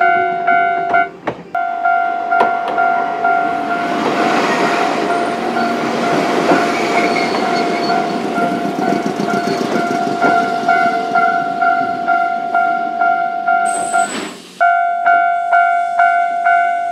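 Japanese level-crossing warning bell ringing in a rapid repeating pattern while a Choshi Electric Railway train rolls through the crossing, its passing adding a rushing rail noise through the middle. The ringing breaks off briefly about a second in and again near the end, then resumes.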